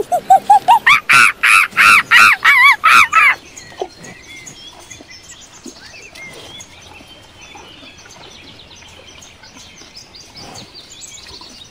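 A monkey's loud call: a rapid run of hoots, about four a second, climbing steadily in pitch and cutting off about three seconds in. After it, faint forest ambience with scattered bird chirps.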